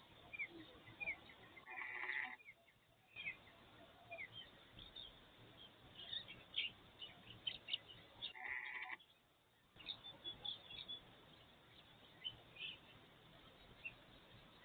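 Birds chirping and twittering in many short, high calls, with two louder, longer calls, one about two seconds in and one about eight and a half seconds in.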